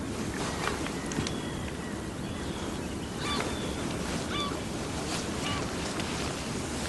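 Steady background ambience with a wind-like hiss and a few faint, short high-pitched sounds scattered through it.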